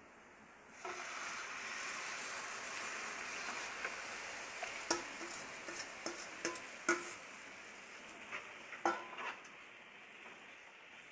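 Mashed vegetables hitting hot oil and masala in a non-stick kadai, sizzling from about a second in and slowly dying down. A steel bowl and spoon knock and scrape against the pan several times as the mixture is scraped out and stirred.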